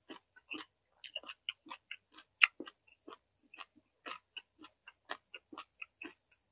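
Close-miked chewing of roasted vegetables: a steady run of short wet mouth clicks and smacks, about four or five a second, with one sharper crunch about two and a half seconds in.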